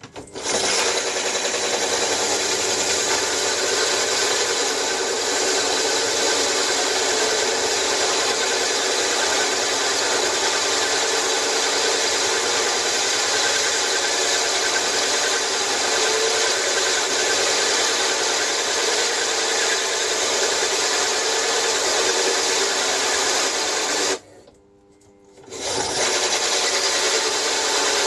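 Hole saw in a bench drill press grinding into a metal plate, a steady harsh scraping that cuts out for about a second and a half near the end and then starts again. The cutter is typical of a very blunt hole saw, which is what the maker suspects.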